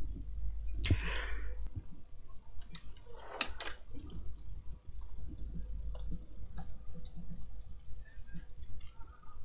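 Handling noise at a workbench: two short knocks with rustling about a second in and at about three and a half seconds, then scattered small clicks, over a low steady hum.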